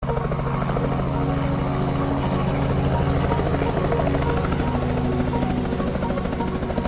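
Helicopter running steadily, its rotor giving a rapid, even beating over a low engine hum.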